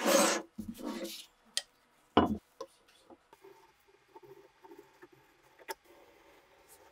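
Wooden blocks slid and set down on a wooden tabletop, with a sharp knock at about two seconds, then faint pencil scratching on wood as the outline of an axe head is traced.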